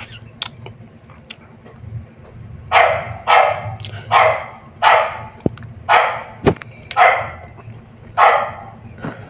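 A dog barking repeatedly, about nine barks in a row a few seconds in, at roughly two a second. A few sharp clicks from a plastic helmet brim being handled sound between them.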